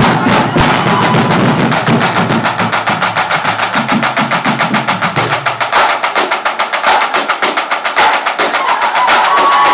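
Marching snare drumline playing a fast, even stream of strokes in unison, with deeper drums sounding beneath it until a little past halfway.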